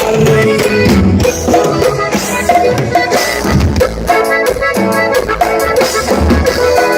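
Norteño band playing an instrumental passage between sung lines: accordion over a steady drum beat.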